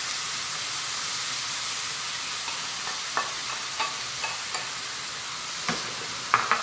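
Chicken livers sizzling steadily in a hot wok as soy sauce is poured over them, with a few light knocks of a utensil against the pan in the second half, the sharpest near the end.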